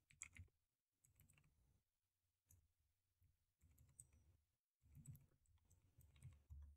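Faint, scattered computer keyboard keystrokes in near silence, a few clicks at uneven intervals as a command is typed.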